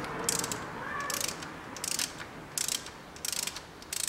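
Hand ratchet with an 11 mm socket clicking in short bursts, about six of them, one every two-thirds of a second or so, as it is swung back and forth to unscrew the upper plug on an automatic transmission case.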